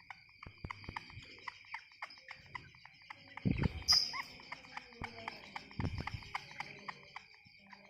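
Young cage bird making short chirps, with one brief high call about four seconds in, over a run of small clicks and two dull knocks, against a steady high hum.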